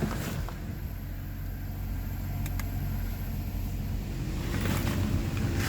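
The 1997 Mercedes E420's 4.2-litre V8 idles steadily with the A/C compressor switched off and no clacking heard. There is a short click right at the start.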